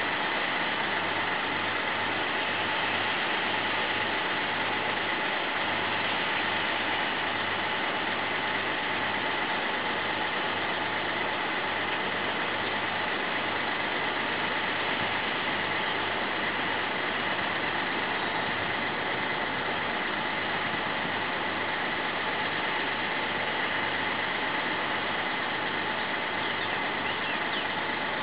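Massey Ferguson 6490 tractor's six-cylinder diesel engine running steadily under load while pulling a plough, heard from a distance under a steady hiss.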